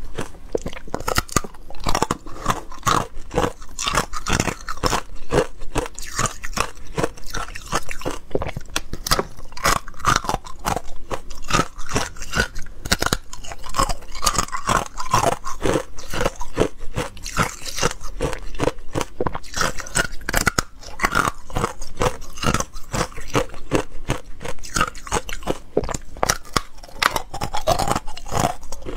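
Hard ice cubes coated in matcha powder being bitten and chewed close to the microphone: a dense, continuous run of sharp cracks and crunches.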